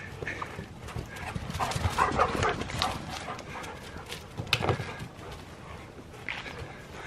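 Two dogs, an Alaskan malamute puppy and another dog, running and playing: quick, irregular paw steps and scuffles, with a few short dog sounds.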